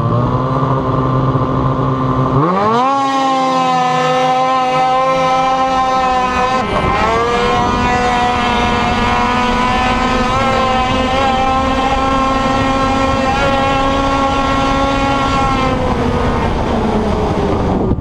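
800-class two-stroke snowmobile engine heard from the rider's seat, holding a steady note, then about two and a half seconds in rising sharply to a high, steady wail under full throttle as the sled launches. The pitch dips and climbs again about seven seconds in, holds high, then eases off slightly near the end.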